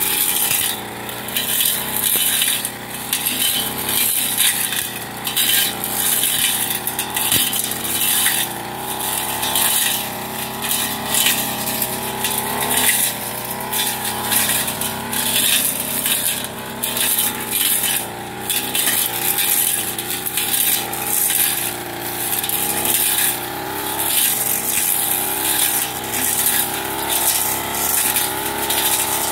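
Backpack brush cutter engine running at working speed, its pitch wavering up and down under load as the metal blade cuts through woody saplings and weeds, with frequent sharp swishes and clatters of the blade striking stems.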